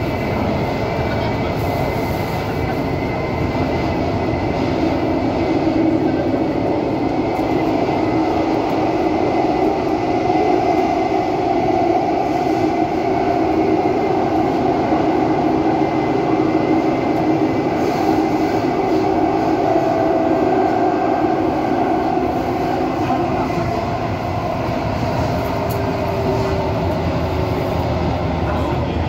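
Thomson–East Coast Line metro train running through a tunnel, heard from inside: a steady rumble of wheels on rail with a sustained drone from the running gear.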